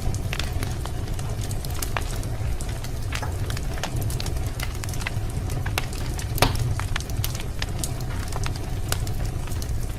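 Fire in a fireplace crackling, with irregular sharp pops over a low steady rumble. One pop about six seconds in is louder than the rest.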